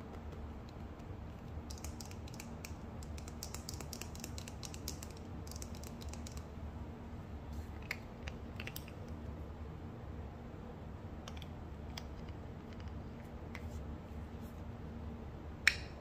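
Fingers tapping and scratching on a plastic squeeze tube of face cleanser: a rapid flurry of small clicks, then a few scattered taps, then one sharp, much louder snap near the end as the tube's cap comes off.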